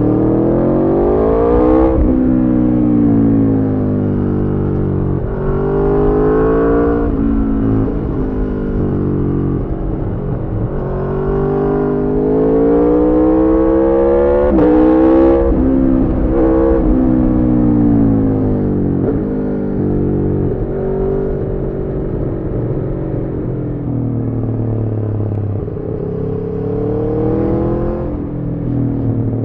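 Aprilia Tuono V4 motorcycle's V4 engine through a decatted Arrow slip-on exhaust, pulling hard through the gears. The revs climb and drop sharply again and again at each upshift, with stretches where they fall away as the throttle is rolled off.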